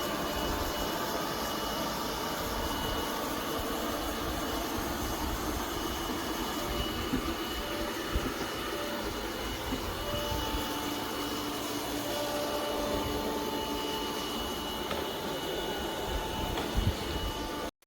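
Robot vacuum cleaner running: a steady motor noise with a thin high whine over a low rumble, and a short knock near the end.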